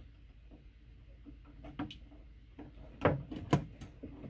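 Small clicks and taps of needle-nose pliers working a bare ground wire around a screw at an electrical box, with two sharp clicks about half a second apart a little past three seconds in.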